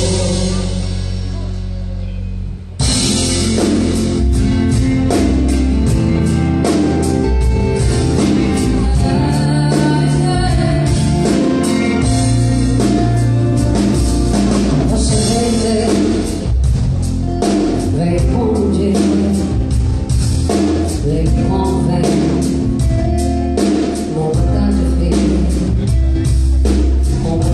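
Live pop-country band playing, with a woman singing over electric guitars, keyboards and a drum kit keeping a steady beat. About three seconds in, a fading held chord gives way abruptly to the full band.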